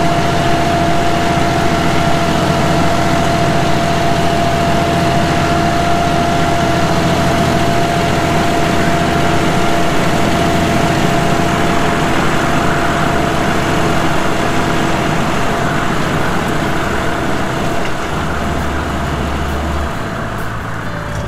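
A John Deere tractor's diesel engine runs steadily, with a steady whine over its drone. The sound eases slightly near the end.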